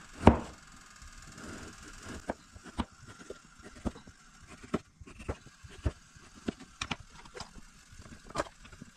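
Kitchen knife knocking on a cutting board as sausages are cut: a string of irregular taps, roughly one or two a second, the loudest just after the start.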